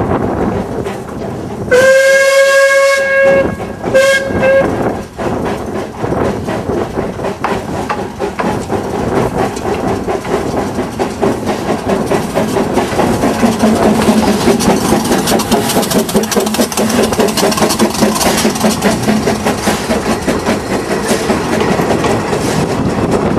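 Narrow-gauge steam train: the locomotive's whistle gives a long blast about two seconds in and a short one soon after. The train then runs close past, its rumble and the clatter of wheels over rail joints growing louder as the carriages go by.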